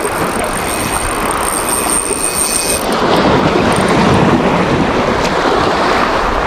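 Wind on the microphone and waves washing against the boulders of a rock breakwater, a steady, loud rush of noise.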